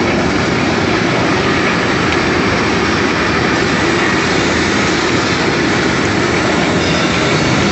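Electric bone crusher running under load, grinding fish with its bones and forcing the paste out through the plate: a steady, loud mechanical grinding noise with a clattering edge.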